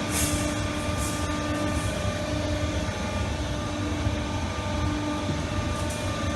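Automatic steel wire hook row ball head welding machine running with a steady mechanical hum and low rumble, with a few faint clicks.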